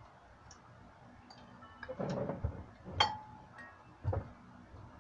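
Spoons and forks clinking and scraping on ceramic plates at a meal table, with a sharp ringing clink about three seconds in and another knock about a second later.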